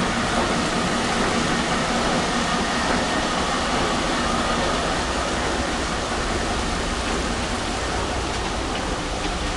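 Steady noise of gravity-separation machinery running, with water washing over the decks of shaking tables.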